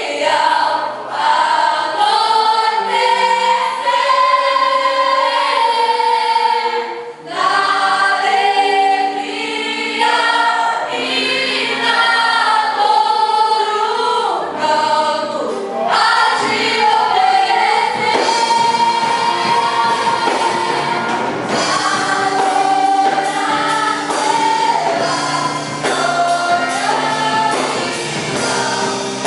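A choir singing a gospel worship song over instrumental backing, the sung lines continuing with one brief drop about seven seconds in.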